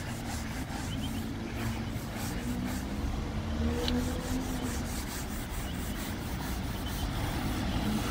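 A string mop and a flat-pad mop rubbing back and forth over wet ceramic tiles, a steady scrubbing, with low traffic rumble underneath.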